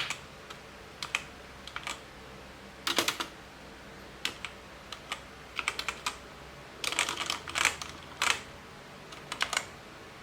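Booox K87 mechanical keyboard with blue clicky switches being typed on: sharp key clicks in short, irregular bursts with brief pauses between them.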